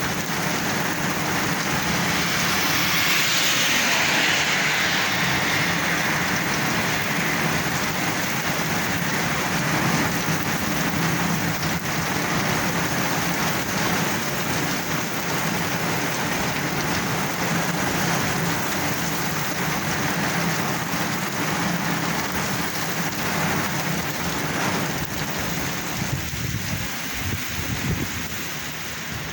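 Heavy rain pouring steadily, a dense hiss of rain falling on hard surfaces. It swells a few seconds in and eases a little near the end.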